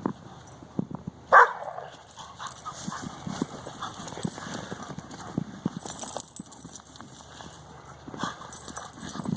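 Dogs playing in snow: irregular crunching footfalls and scuffling, with one short, loud dog bark about a second and a half in.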